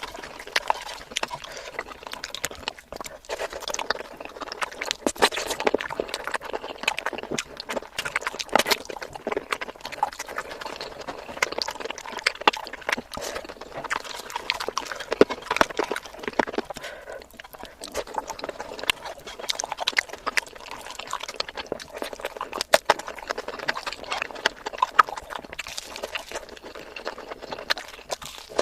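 Close-miked wet chewing and lip-smacking of a person eating curry, with many irregular mouth clicks.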